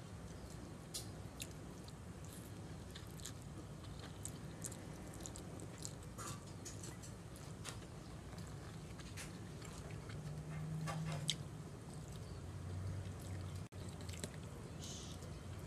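Someone eating cold noodles with sesame sauce: chewing and wet mouth sounds, with scattered small clicks over a low steady hum.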